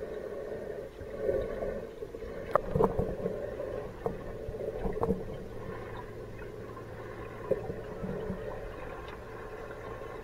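Muffled underwater sound inside a large saltwater aquarium tank, heard through a submerged camera: an uneven low wash of water noise with a handful of sharp clicks scattered through it, and a steady low hum that joins partway through.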